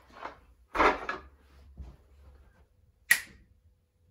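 A plastic milk crate loaded with wooden dowels, wood strips and 3D-printed parts set down on carpet, the loose wood clattering inside it about a second in. Near the end comes a single sharp finger snap.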